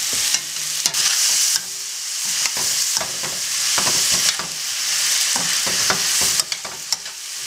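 Vegetables and pasta sizzling in hot grapeseed oil in a stainless steel sauté pan, with a metal spoon scraping and clicking against the pan as they are stirred.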